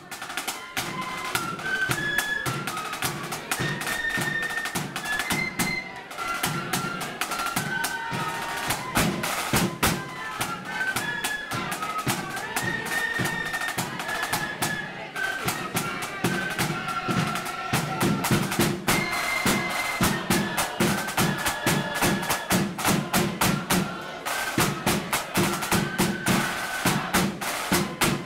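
Marching flute band playing a tune: flutes carry the melody over a rank of snare drums and a bass drum keeping a driving beat. The drumming grows heavier about two-thirds of the way through.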